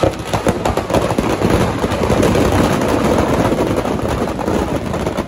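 Firecrackers packed into a burning Ravan effigy going off as a loud, dense crackle, many quick bangs running together.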